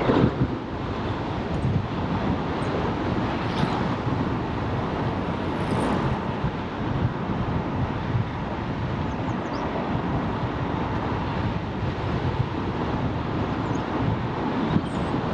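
Steady wind rush on a GoPro's microphone during a bicycle ride, mixed with a continuous rolling road noise.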